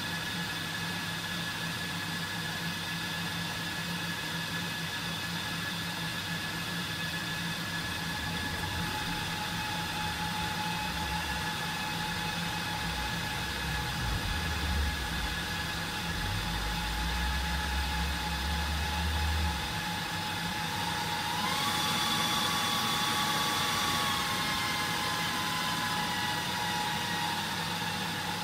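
HP ProLiant DL380p G8 server's cooling fans whining steadily while the server boots through its power and thermal calibration. About twenty seconds in, a higher fan whine rises, holds, then slowly falls away; a low rumble runs from about thirteen to twenty seconds in.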